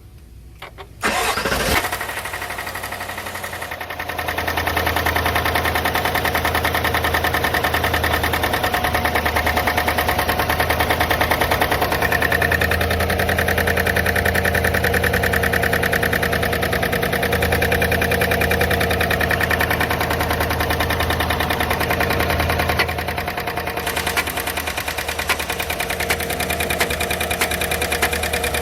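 A 2021 Chevrolet Tahoe / GMC Yukon engine cranks and catches about a second in, then runs at a steady raised idle that eases down a little near the end. It is an engine logging a random-misfire code (P0300) with a ticking complaint.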